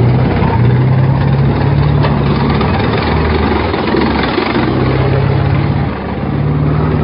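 Tank driving past at close range: its heavy engine running steadily under the rumble and clatter of its tracks on the road, easing briefly about six seconds in.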